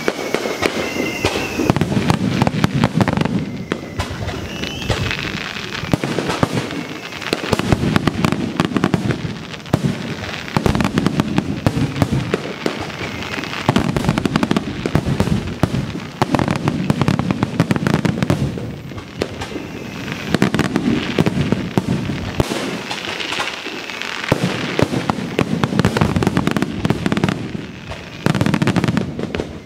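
Aerial fireworks display: a dense barrage of shell bursts and booms, one after another, with a few high whistles. The barrage comes in waves that swell and ease every few seconds.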